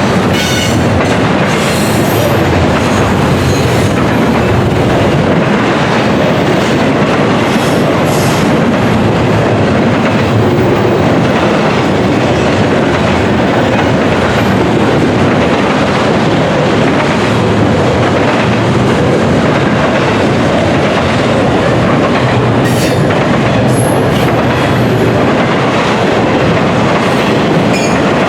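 CN freight train cars rolling past, wheels clattering steadily over the rail joints, with a few brief high-pitched wheel squeals.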